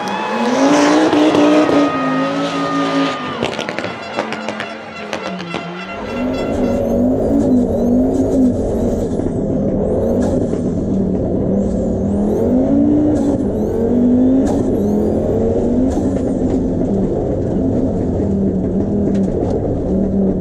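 Audi Quattro Group 4 rally car's turbocharged five-cylinder engine revving hard as the car slides through a corner, with a run of sharp pops around three to five seconds in. About six seconds in it is heard from inside the cabin, the engine note climbing and dropping again and again through gear changes, with thin rising turbo whistles above it.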